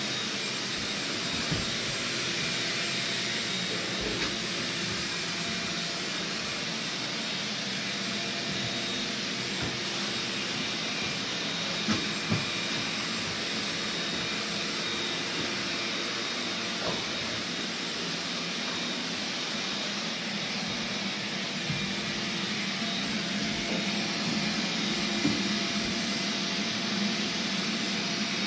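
A motor-driven blower running steadily, a constant whoosh with a faint hum in it, and a few faint knocks scattered through.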